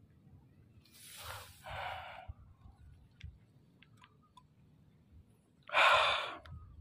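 A person's breathy sighs or exhalations: a softer one in two parts about a second in, and a louder one near the end, with a few faint clicks in between.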